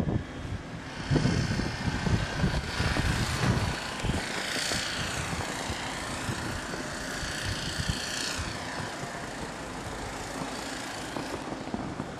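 An engine passing by, its whine rising and then falling over several seconds, with wind rumbling on the microphone.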